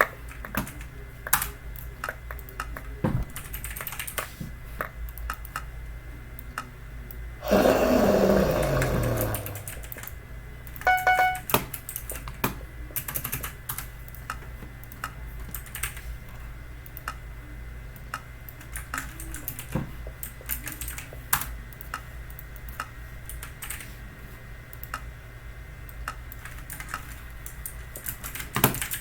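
Typing on a Logitech mechanical keyboard with clicky switches, Logitech's counterpart to blue switches: a steady patter of sharp keystroke clicks. About eight seconds in, a loud sound sweeps downward in pitch over roughly two seconds, and a short beep follows about a second later.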